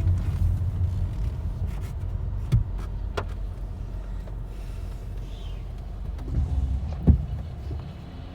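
Inside a moving car in a rainstorm: a steady low road rumble that slowly fades, with a few sharp taps, one about two and a half seconds in, one about three seconds in and one near the end.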